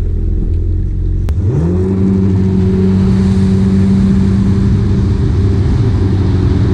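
An engine's low rumble, then from about a second in a drone that rises quickly in pitch and holds steady.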